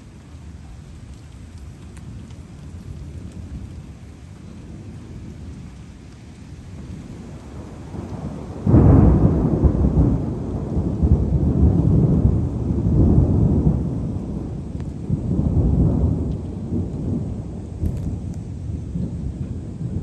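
Thunder: a faint low rumble grows, then a clap breaks suddenly about nine seconds in and rolls on in several swelling rumbles that slowly die away.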